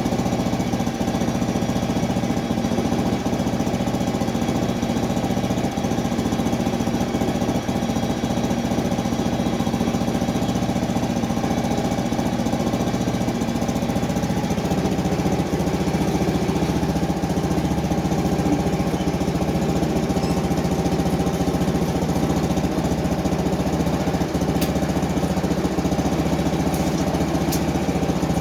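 Small gasoline engine of a Frontier OS23 portable bandsaw mill running steadily, its tone shifting lower about halfway through.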